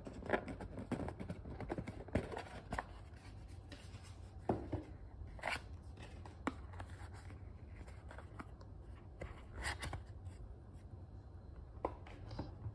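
Rigid cardboard gift box being opened and handled: the lid lifting off and the cardboard scraping and tapping, in a string of short, scattered rustles and knocks.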